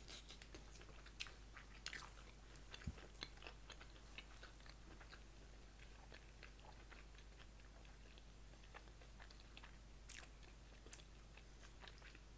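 Faint close-miked eating sounds: quiet chewing with scattered sharp mouth clicks, a cluster in the first few seconds and a couple more about ten seconds in.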